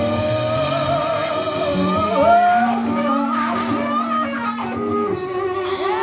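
Live rock band: a female singer holds a long note with vibrato, stepping up in pitch about two seconds in, over electric guitar and bass.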